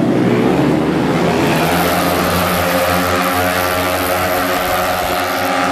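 A pack of racing 115cc automatic scooters running flat out, their small single-cylinder engines blending into a loud, high-revving drone. The pitch bends in the first second as bikes pass close, then holds steady as the pack pulls away.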